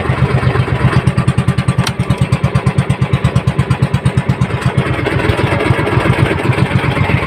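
Small outrigger boat's engine running steadily, with a rapid low thudding of about ten beats a second.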